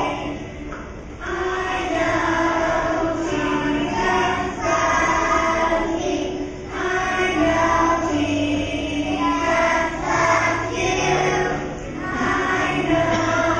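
A group of young children singing together, in short sung phrases with brief pauses between them.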